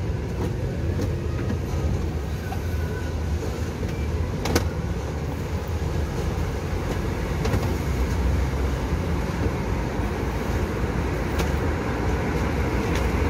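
Steady low background rumble, as of running machinery or traffic, with a single sharp click about four and a half seconds in.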